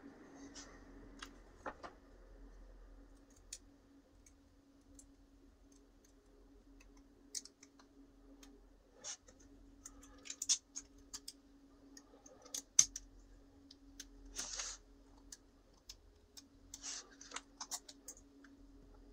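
Scattered small clicks and short scrapes of a little coil spring being worked into a 3D-printed plastic trigger part by hand, the loudest click about two-thirds of the way through; the spring is a little long and binds in its hole. A faint steady hum runs underneath.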